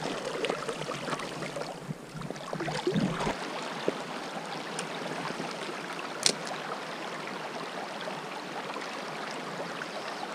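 Mountain river rushing steadily over a riffle, with a single sharp click about six seconds in.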